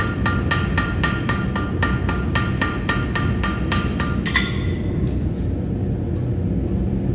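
Rapid, even hammer blows on hot steel, about four a second with a ringing tone, forge-welding the tip of a laminated blade on its last welding heat. The blows stop about four seconds in, leaving a steady low rumble.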